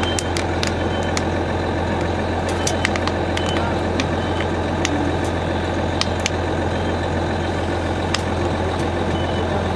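A fire engine's diesel running steadily with an even hum, over which come scattered sharp crackles and pops from a furnished room burning fully, and a few short high beeps.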